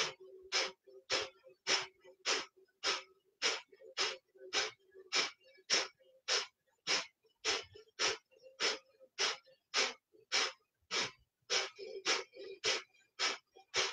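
Kapalabhati (skull shining breath): rapid, forceful exhales through the nose with the lips sealed, each a short sharp puff of air, with the inhale drawn in passively between them. They come in a steady, even rhythm of just under two a second.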